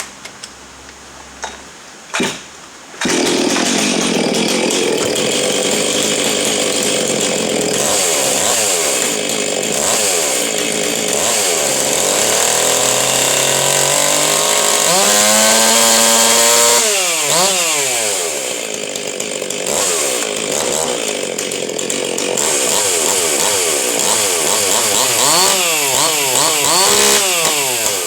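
Modified Stihl 036 Pro two-stroke chainsaw, with custom exhaust, exhaust-port work and changed timing, starting about three seconds in. It runs steadily, then from about halfway is revved up and down several times, its pitch climbing and falling with each blip of the throttle.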